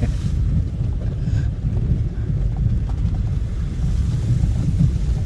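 Off-road vehicle driving, heard as a steady low rumble with wind buffeting the microphone.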